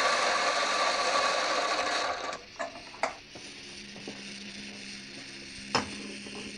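Electric coffee grinder grinding beans with a steady whir that cuts off about two seconds in. A few sharp clicks follow over a faint low hum.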